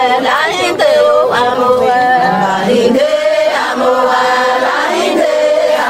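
Voices singing a chant-like song, with long held notes.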